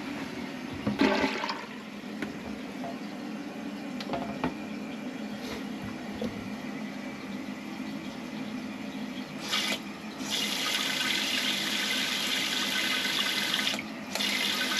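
Toilet flushing about a second in, then water running as the tank refills through a newly replaced fill valve. About two-thirds of the way through, a louder steady hiss of the refill starts, breaks off briefly and starts again near the end.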